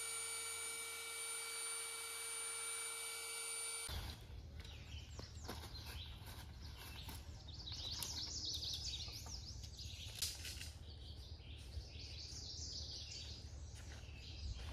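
For the first four seconds, a steady whine made of several fixed tones, which then cuts off. After that, small birds sing in quick chirping phrases over a low outdoor hum, with a few sharp knocks.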